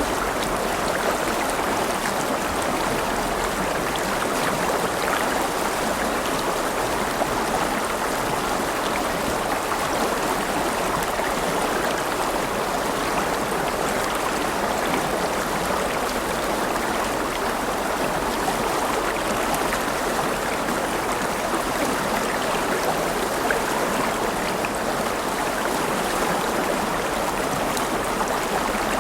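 River water flowing over rocks: a steady, even rush and babble of a stream.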